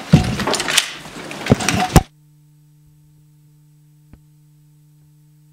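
Handling noise close to the microphone: rustling with several sharp knocks for about two seconds, then the sound cuts off abruptly to a steady low hum, with a single faint click about four seconds in.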